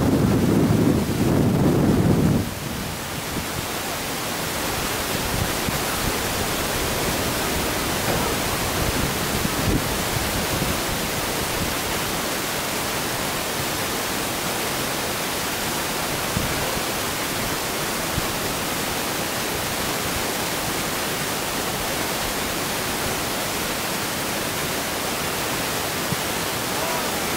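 Wind buffeting the microphone as a loud low rumble for the first two seconds or so, then a steady even hiss of wind noise.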